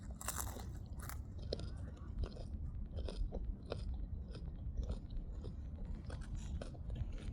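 Someone chewing raw radish close to the microphone, with irregular crisp crunches.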